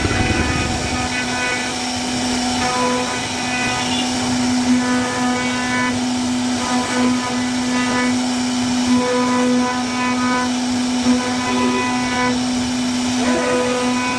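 CNC router spindle running at a steady high speed with a constant pitched whine, while the bit cuts wood and the overtones swell and fade as the cutting load changes.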